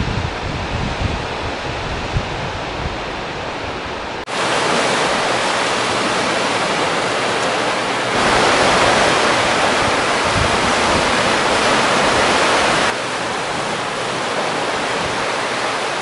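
Sea surf washing steadily onto the shore as an even rush of noise, with wind gusting on the microphone during the first four seconds. The sound changes suddenly about four seconds in, grows louder a few seconds later, and drops back again near thirteen seconds.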